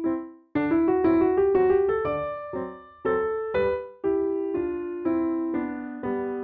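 Background music: a piano-like keyboard playing a light melody of struck notes that ring and fade, with a brief pause about half a second in.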